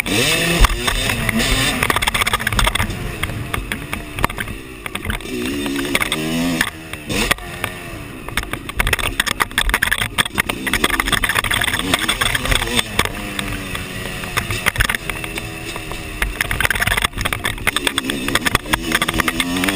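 Dirt bike engine heard from an onboard camera at close range, revving up and dropping back over and over as the bike is ridden hard through the gears around a motocross track. Many short knocks and rattles from the rough ground are mixed in.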